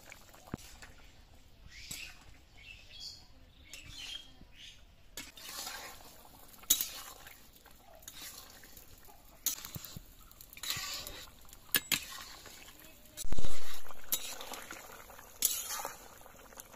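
Metal spatula clinking and scraping against an iron kadai as a simmering fish curry is stirred, in scattered sharp clicks. A dull thump about thirteen seconds in is the loudest sound.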